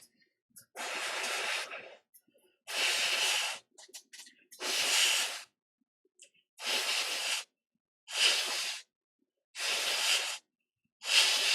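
Seven short bursts of air blown onto an iPhone 6 logic board to cool it down after it overheated during testing, each a hiss lasting about a second, coming every one and a half to two seconds.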